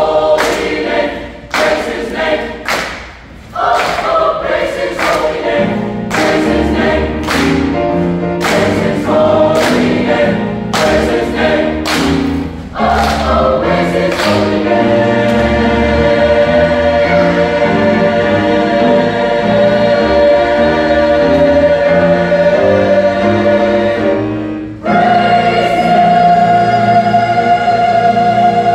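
Mixed choir singing with piano accompaniment, the singers clapping in time, about three claps every two seconds, through the first half. The claps then stop and the choir holds long sustained chords, breaks briefly, and comes back in on a loud held chord near the end.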